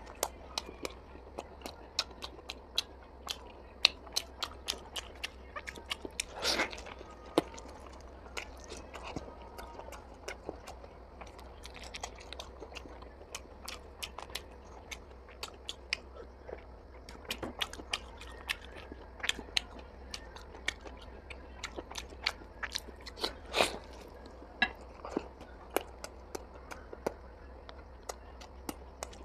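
A person eating mutton and chicken curry close to the microphone: steady chewing and biting with many short, wet clicks and smacks of the mouth.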